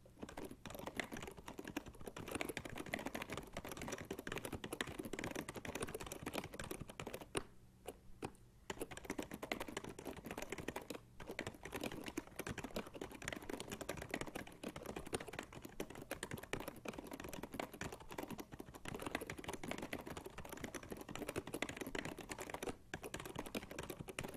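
Continuous typing on an original Happy Hacking Keyboard PD-KB02 with Fujitsu rubber-dome switches: a dense, irregular run of keystrokes, with brief pauses about eight and eleven seconds in.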